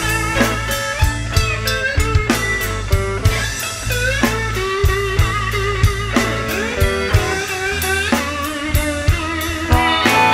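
Blues band playing an instrumental passage: a guitar solo with bent, sliding notes over bass and a steady drum beat.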